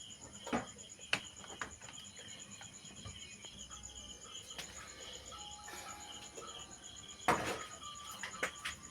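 Insects chirping steadily in rapid pulses in the background, with a few sharp clicks and knocks of handling, the loudest about seven seconds in.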